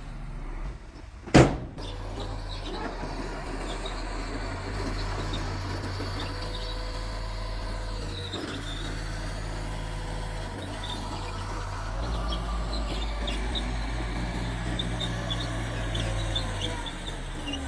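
Mitsubishi bulldozer's diesel engine running steadily under work, getting louder about twelve seconds in. A single sharp knock about a second and a half in is the loudest sound.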